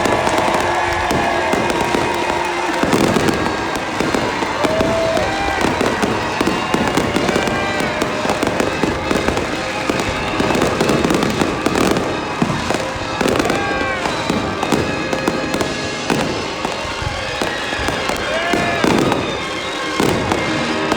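Fireworks show: a continual run of shell bursts and bangs, with music playing along.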